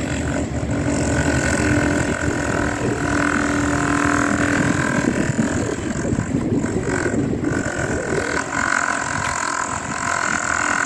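Diesel engines of tracked demolition excavators running, a dense low rumble with a steady high whine over it that drops away briefly about two-thirds of the way through.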